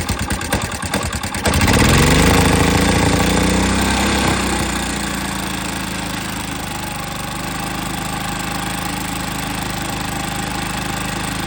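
Freshly rebuilt Harbor Freight Predator 212 single-cylinder four-stroke engine, with a new piston, connecting rod and gaskets, running. About a second and a half in it speeds up and gets louder. It then settles back to a steady run by about five seconds in.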